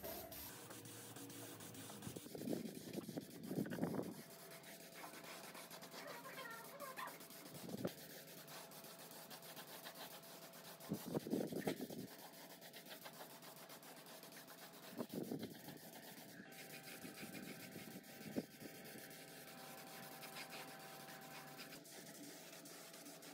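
Paint spray gun hissing in several short bursts, about a second each, over a faint steady hiss.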